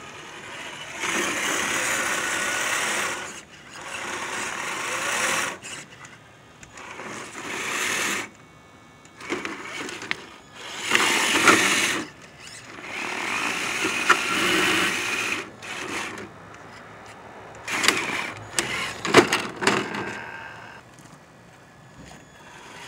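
Electric motor and gear drivetrain of a Traxxas TRX-4 RC rock crawler whirring in bursts of a second or two, about seven times, as throttle is applied and released while it climbs over rocks.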